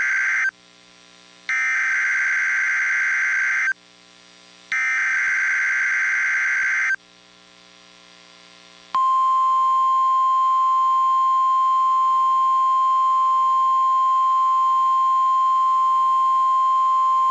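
Emergency Alert System SAME header data bursts from NOAA Weather Radio, a harsh warbling buzz sent three times with about a second's gap between them. About two seconds after the last burst, the single steady 1050 Hz weather radio alert tone starts and holds.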